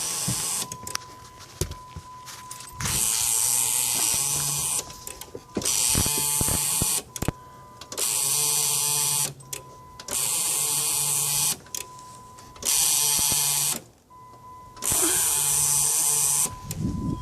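Dodge Grand Caravan's starter motor cranking in about seven short bursts of one to two seconds each, the engine never catching: a no-start condition. A steady high tone sounds in the pauses between attempts.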